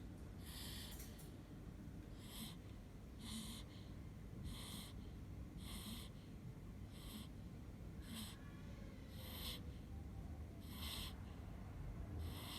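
A five-day-old newborn snoring in sleep: short, hissy, snuffling breaths, about one every second or so, around ten in all.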